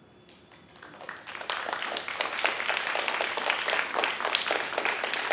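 A small audience clapping: it starts about a second in and quickly builds to steady applause.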